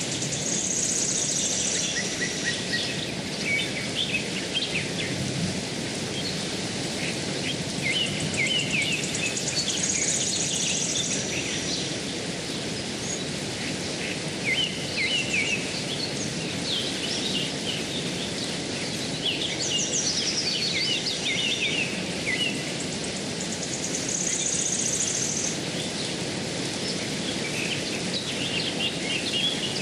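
Steady rushing of a shallow stream over stones, with birds chirping on and off throughout. Now and then a high buzzing trill sounds for a second or two.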